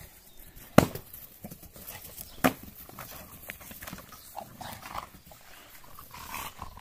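American bulldogs playing rough, tugging and scuffling on grass. Two sharp knocks about a second in and about two and a half seconds in, then scattered scuffling noises.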